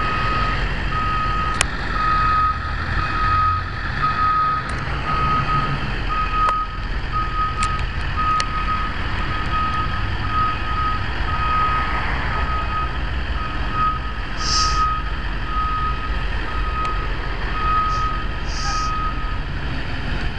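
Ambulance reverse alarm beeping steadily, about two beeps a second, over the low rumble of its idling engine as it backs up. The beeping stops about a second before the end.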